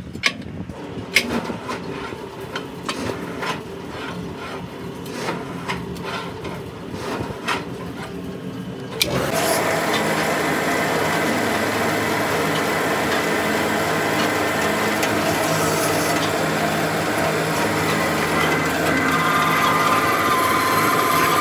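Steel tractor wheel rim and disc being set on a heavy press's die: scattered metal clanks and knocks. About nine seconds in the press starts with a loud, steady mechanical noise and hum as its ram comes down into the rim, and a higher whine joins near the end.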